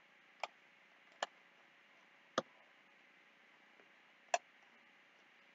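Four separate clicks of a computer mouse button, irregularly spaced, over a faint steady hiss.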